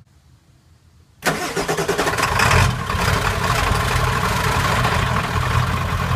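1994 Ford F-350's 7.3 PowerStroke turbodiesel V8 starting about a second in and flaring briefly, then settling to a loud idle through a straight-piped 4-inch side-exit exhaust with no muffler or cat.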